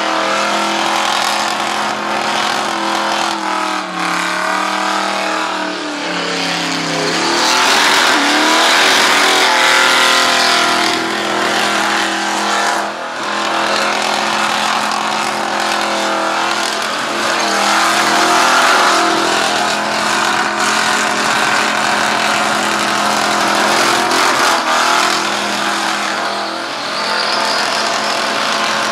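Ford Falcon BA ute doing a burnout, its engine held at high, steady revs while the rear tyres spin and screech. The revs sag and climb back up about four to seven seconds in, and dip briefly twice more later on.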